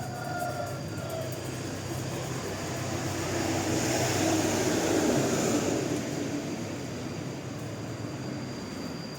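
A motor vehicle passes by. Its noise builds to a peak about five seconds in and then fades, over a steady low engine hum.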